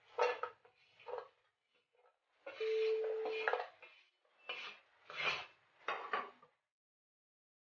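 A wooden spatula scraping across a hot iron tava in about six separate strokes, clearing roasted coconut pieces off the griddle into a bowl. One longer scrape a little before the middle carries a short held tone.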